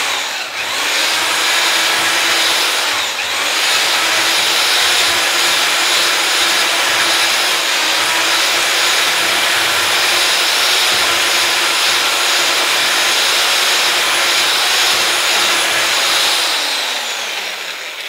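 Electric drill mixer with a paddle running steadily while stirring travertine plaster with water. It dips briefly about three seconds in, runs on, then winds down with a falling whine near the end.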